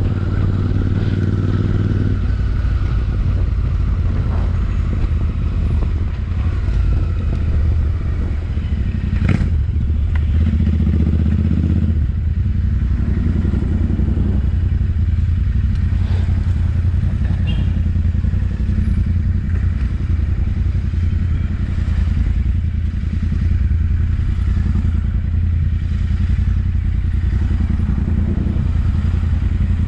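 Royal Enfield Interceptor 650's parallel-twin engine running loud through its exhaust, its note changing about two seconds in, with a sharp click about nine seconds in.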